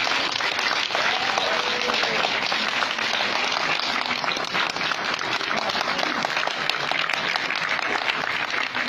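Cinema audience applauding steadily: many hands clapping at once, with a voice calling out over the clapping about a second in.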